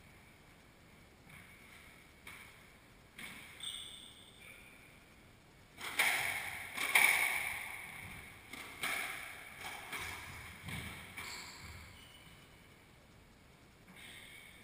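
Squash ball being struck back and forth in a rally: a series of sharp smacks off rackets and walls that ring in the enclosed court, the hardest two near the middle, with a few brief high squeaks of shoes on the wooden floor. The hits thin out and stop about twelve seconds in.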